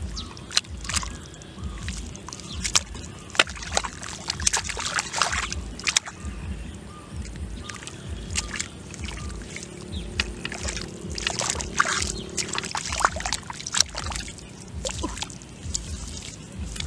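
Hands sloshing and squelching through thick mud and shallow muddy water, with many short splashes.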